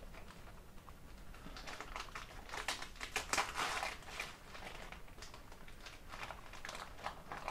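Gift wrapping paper crinkling and rustling as a wrapped present is unwrapped by hand, in two spells of handling, the busier one in the first half.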